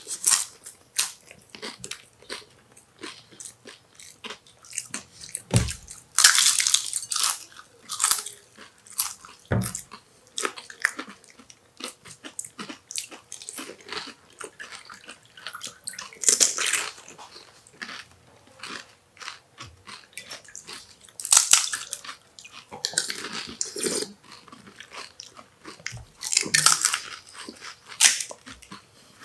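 Crisp fried pani puri shells crunching and cracking as two people bite, break and chew them, with many sharp cracks and several louder crunching bursts. Two dull thumps about five and ten seconds in.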